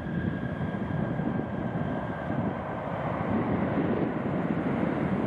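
Jet engines of a twin-engine airliner on its landing roll-out just after touchdown: a steady rushing noise with a thin whine that fades away over the first few seconds as the engines spool down.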